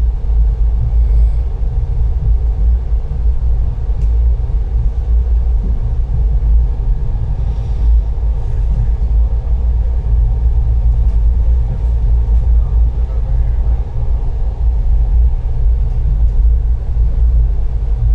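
Moving train: a steady, loud low rumble that carries on evenly throughout.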